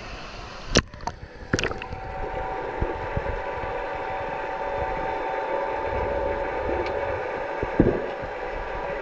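Two sharp splashes as the camera breaks the surface, then the muffled underwater sound of an underwater hockey match: a steady hum with a few knocks, the loudest near the end.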